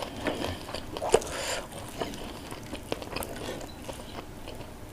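Close-miked eating sounds: chewing, with scattered small clicks and crackles as fried fish is picked apart by hand. One sharper click comes about a second in, and it grows quieter after that.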